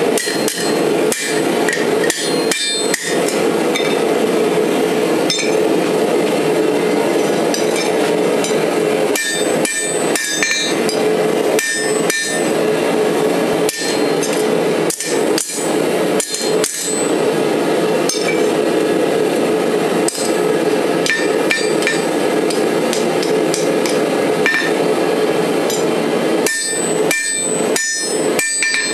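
Hand hammer striking a slot punch held on steel bar stock on an anvil, cutting slots for dagger guards: a long series of sharp metal-on-metal blows at an uneven pace, with brief ringing. A loud, steady rushing noise runs under the blows.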